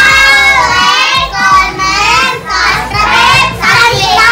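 A group of young boys singing loudly together in unison, in a run of short phrases.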